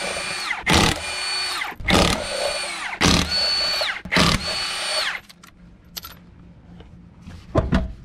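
Milwaukee M12 Stubby cordless impact wrench running the lug nuts off a wheel one after another: four short runs of about a second each. Each run starts with a loud hit and carries a steady whine that drops in pitch as it stops. A few light knocks near the end.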